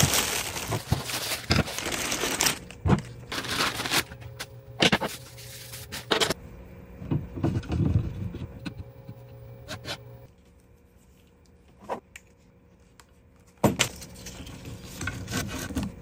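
Plastic packaging crinkling as small machine parts are unwrapped, then scattered light clicks and clinks of metal parts being handled and fitted together on a steel bench. The handling goes quieter for a few seconds in the second half, broken by a single sharp click.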